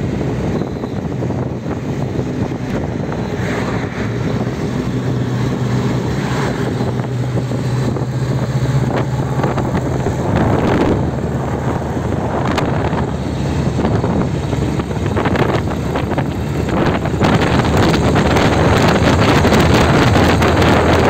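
Vintage car engine running steadily at road speed, a low even hum under heavy wind rush on the microphone from travelling in an open car. The wind noise grows louder about two-thirds of the way through.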